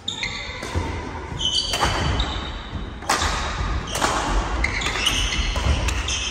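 Badminton rally: rackets striking the shuttlecock in repeated sharp cracks, with short high squeaks of shoes on the wooden court floor and footfalls between them, echoing in a large hall.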